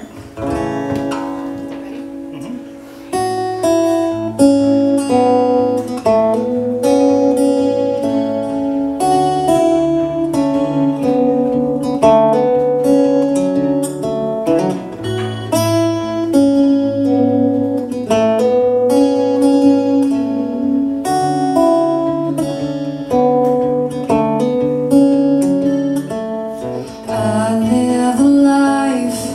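Two acoustic guitars playing a song together, with distinct picked notes over chords. The playing is softer for the first few seconds and grows fuller about three seconds in.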